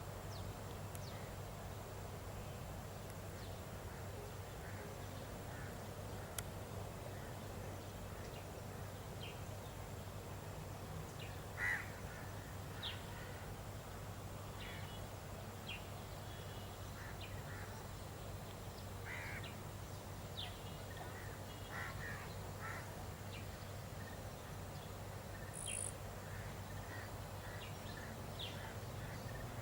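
Scattered short bird calls, several seconds apart, over a steady low hum of outdoor background noise.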